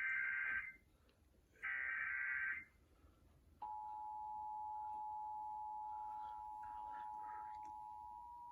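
Emergency Alert System tones: two one-second bursts of SAME header data, then, from about three and a half seconds in, the steady two-tone attention signal (853 and 960 Hz sounded together) that announces the alert.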